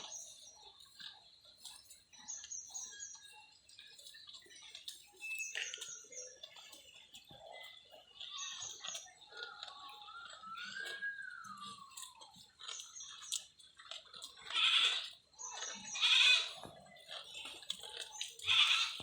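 Water buffalo eating grass: irregular rustling and crunching as grass is torn and chewed, louder in a few bursts in the second half. Small birds chirp in the background.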